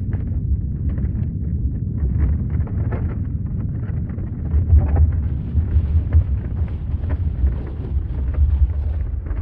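Earthquake rumble: a deep, continuous low rumble with scattered crackles and rattles over it, swelling slightly about halfway through.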